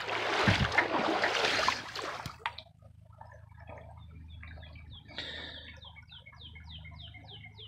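Creek water splashing and sloshing as hands dig through it, stopping after about two and a half seconds. Then a bird calls a rapid series of short falling chirps, about four a second, in the second half.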